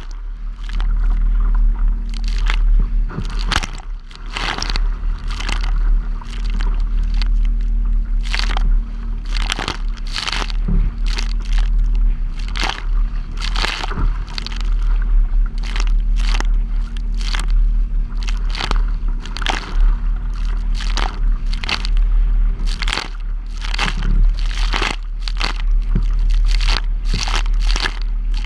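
Waves slapping and splashing against a plastic kayak's bow in choppy water, in repeated irregular bursts, over a steady low rumble of wind buffeting the camera's microphone.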